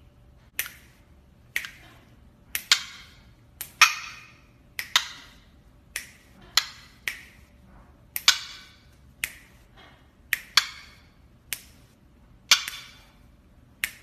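A series of sharp clicks, roughly one a second, some in quick pairs, each with a short ringing tail.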